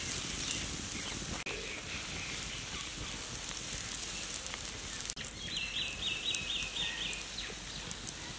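Pancake batter sizzling as it is poured onto a hot, oiled steel griddle over a wood fire, a steady frying hiss. About two-thirds through, six quick high chirps sound in a row.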